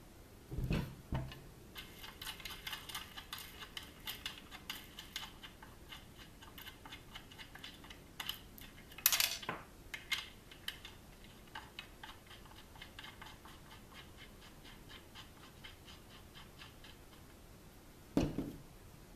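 Hands working a plastic kayak pedal drive on a table: a low thump as the unit is set down, then runs of small rapid clicks and rattles as a hex key turns the pedal retention screw in the crank, with a sharper click partway through and another thump near the end as the unit is shifted.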